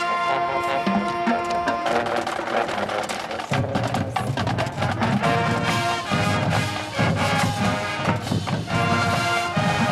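Marching band playing: sustained brass chords, with the drum line and percussion coming in strongly about three and a half seconds in.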